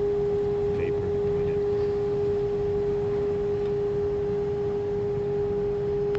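Steady hum of building plant machinery: one constant held tone with a fainter higher overtone over a low rumble, unchanging throughout.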